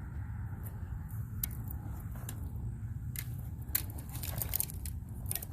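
Close handling noises as a caught bass is held and unhooked: scattered small clicks and crackles, thickest in the second half, over a steady low rumble.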